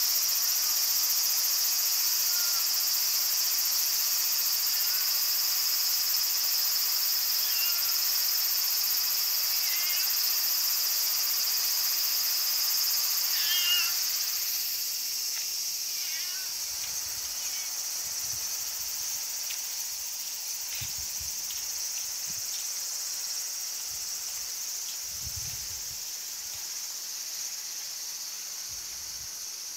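Steady high-pitched chorus of summer insects, with a few short chirping calls standing out over it in the first half. The chorus drops a little about halfway through.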